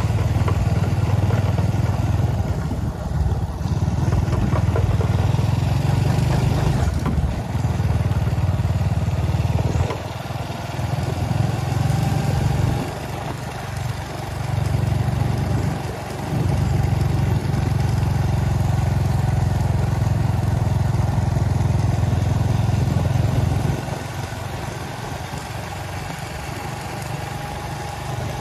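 A motor vehicle, like a motorcycle being ridden, running steadily. The level drops briefly a few times and eases off for a longer stretch near the end.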